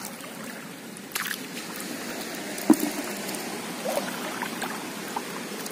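Shallow water sloshing and trickling as hands work in it, with a few small splashes.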